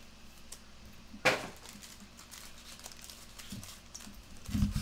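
Trading cards and sealed card packs being handled on a padded table mat: a single sharp click about a second in, then a few dull thumps near the end as packs are set down.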